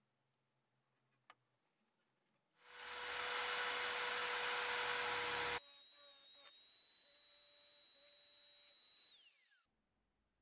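Electric drill boring into steel square tubing: the drill runs loud and steady for about three seconds, then after a sudden change runs more quietly with a steady high whine, and winds down near the end as the motor is released.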